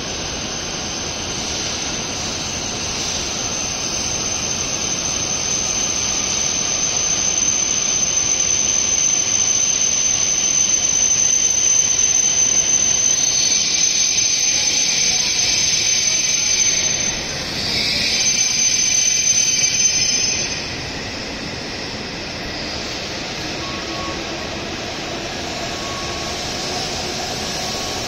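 E7 series Shinkansen train slowing into the platform: a rushing rolling sound with a steady high squeal. Both grow louder, then cut off about twenty seconds in as the train comes to a stop, leaving a quieter steady hum.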